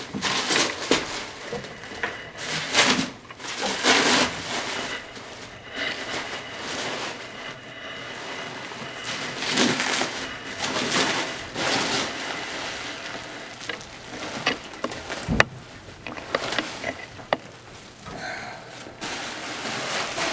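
Irregular rustling and scraping of packing material being handled while a boxed flight-sim throttle unit is unpacked, with scattered clicks and knocks. One sharp knock comes about fifteen seconds in.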